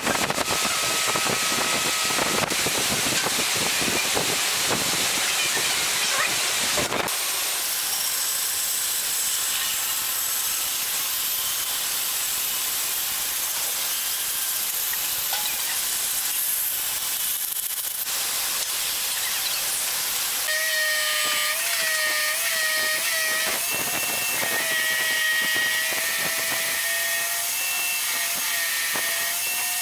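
Light handling noise at first, then a band saw cutting a curve through a pine board, an even hiss. About two-thirds of the way in, a drum sander spins up with a whine that wavers in pitch as the curved edge is pressed against it.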